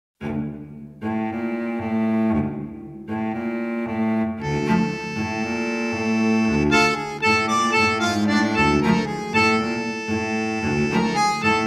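Instrumental music of long held notes, starting abruptly and growing fuller and busier about four and a half seconds in.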